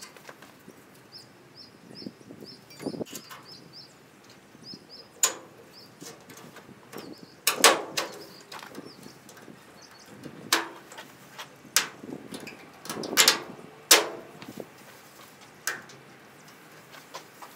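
Side molding being pressed and snapped onto the steel bedside of a 1963 Chevrolet C10 pickup: about a dozen sharp, irregular clicks and knocks, the loudest ones near the middle. A small bird chirps faintly and rapidly in the first few seconds.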